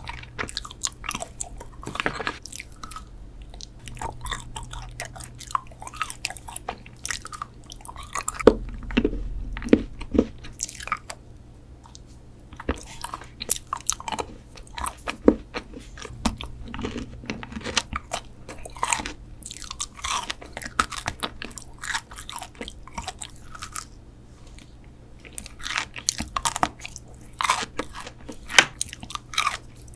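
Close-miked eating sounds: crisp bites and crunchy chewing, in dense clusters of sharp crackles with a couple of short lulls, over a faint steady low hum.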